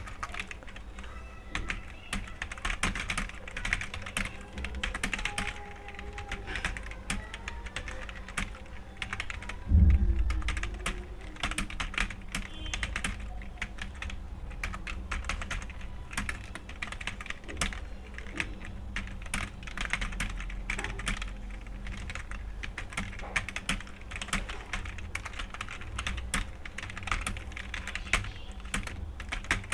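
Continuous rapid typing on a computer keyboard, a dense run of key clicks, with one dull thump about ten seconds in.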